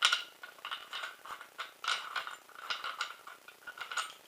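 Metal parts of an airsoft M4 clinking and scraping as they are handled and unscrewed: a run of small, irregular metallic clicks and taps, loudest right at the start.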